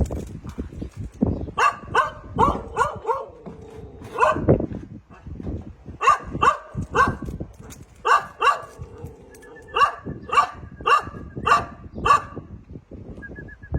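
A dog barking repeatedly in quick runs of several barks, with short pauses between the runs.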